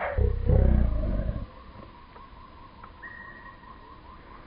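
Wind rumbling on the camera microphone for about the first second and a half, then a faint outdoor background with a quiet, steady high tone and light ticking.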